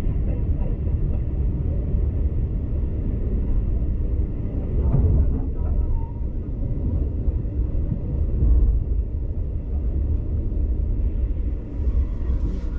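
Passenger train carriage rolling along the track at speed, heard from inside as a steady low rumble.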